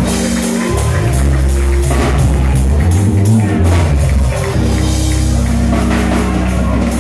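Live church praise band playing, with a drum kit and guitar over a deep, steadily changing bass line, and the congregation clapping along.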